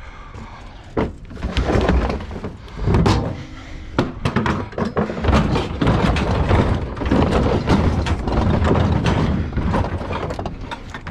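Scrap metal clanging and banging again and again as it is pulled off a truck bed, over a steady low engine rumble.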